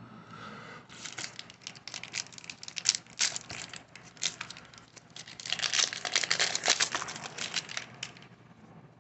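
Foil wrapper of a baseball card pack crinkling and tearing as it is opened by hand: a dense run of crackles starting about a second in and stopping shortly before the end.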